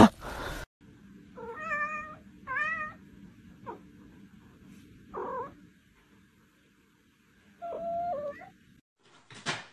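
A cat meowing: four short meows a few seconds apart.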